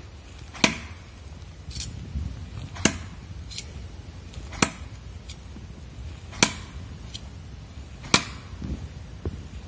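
Steel throwing knives thrown one after another and striking a tree trunk: five sharp thunks about two seconds apart. Fainter clicks come between the hits.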